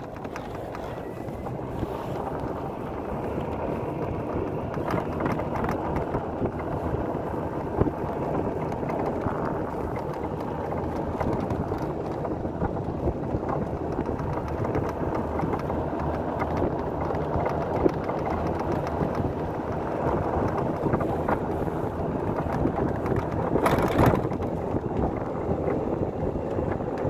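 Golf cart driving along a snow-covered road: steady running noise of the cart and its tyres, with wind on the microphone and a brief louder rush near the end.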